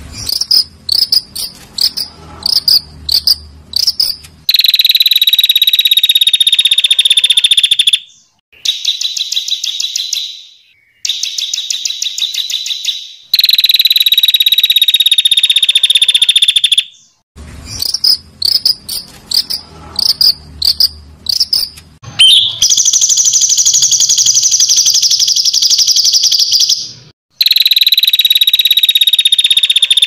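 High-pitched animal trilling from a songbird-training (masteran) recording. Runs of short, sharp chirps give way to long, buzzing trills of several seconds each, split by brief pauses. The chirps-then-trills sequence repeats about halfway through.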